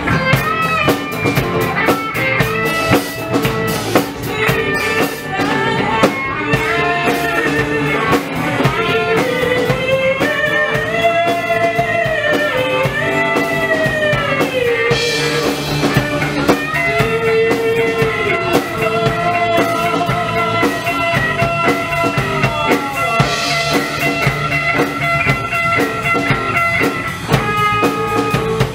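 Live rock band playing: electric guitars and a drum kit, with a lead melody line that bends and slides over the steady beat.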